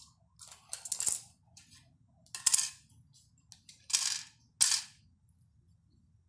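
Plastic Lego bricks and plates clattering as they are handled and set down on a wooden floor, in several short bursts.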